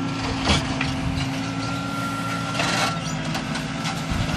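Diesel engine of a JCB backhoe loader running steadily, a low even hum, with rustling and scraping noise over it.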